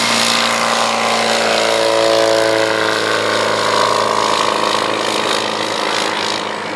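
A Legal Eagle ultralight's Half VW four-stroke engine running at full power on takeoff and climb-out. The engine note drops in pitch as the plane passes and goes away.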